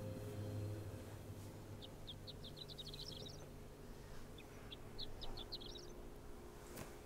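A bird chirping: two quick series of short, high chirps, each about a second and a half long and rising slightly in pitch. A faint click comes near the end.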